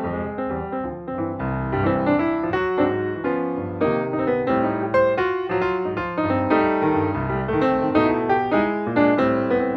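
Background music led by piano, with quick repeated notes over held chords.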